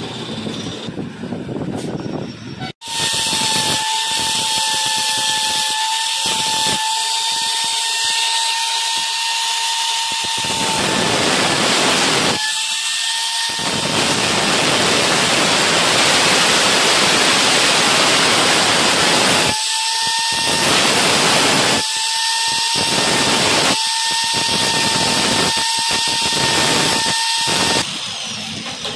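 Angle grinder with a cutting disc, switched on about three seconds in and running with a steady whine. Several stretches of harsh, dense noise come as the disc cuts into the workpiece. It switches off near the end.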